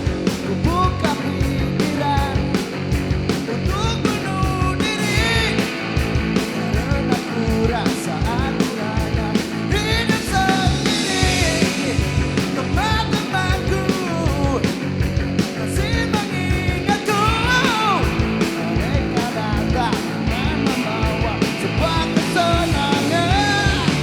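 Rock band playing live: drums pounding a steady, fast beat under a full band, with a voice singing over it.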